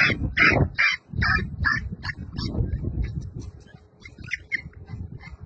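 An animal crying out in quick short high calls, about three a second, weakening in the second half, over low rumbling noise.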